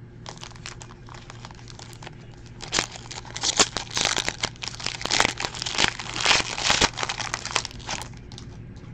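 Foil trading-card pack being torn open and its wrapper crinkled as the cards are pulled out. A few faint taps come first; the crinkling starts about three seconds in and goes on in quick bursts until shortly before the end.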